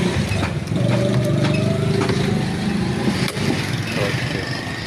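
A motor or engine running steadily with a low hum, with a few sharp clicks and knocks over it.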